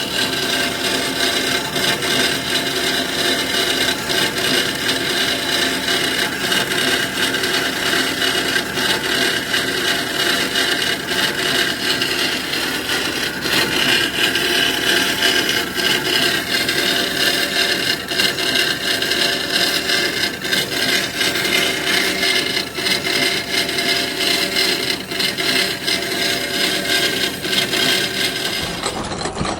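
Hemsaw 750A horizontal metal bandsaw running, its blade cutting through metal stock with a steady whine and hiss.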